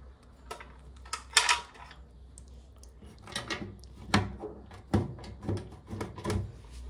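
A hand working at the plastic lower front panel of a washing machine, setting the panel's retaining screw in place. Short scrapes and clicks of plastic come first, then about five sharper knocks roughly half a second apart.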